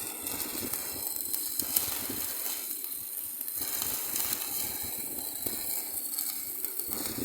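Arc welding stainless steel with a 308 stick electrode: the arc gives a steady, dense crackling sizzle.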